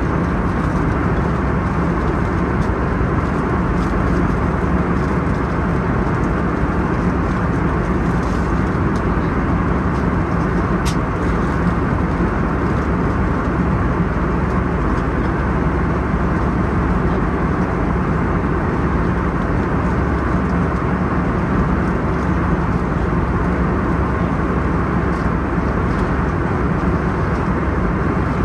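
Steady cabin noise of an Airbus A321neo in cruise flight: an unchanging rush of airflow and engine drone with a steady low hum underneath.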